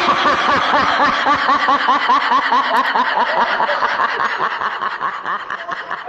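Laughter sound effect: a rapid, repeated high-pitched snickering laugh that fades out near the end.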